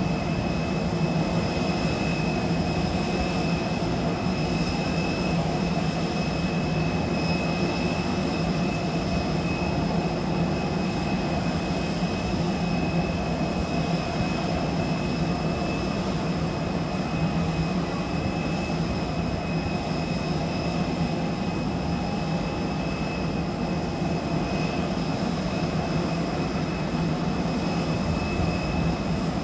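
Steady whine and low drone of a jet airliner standing at the gate: a high whine held on one pitch over a constant rumble, unchanging throughout.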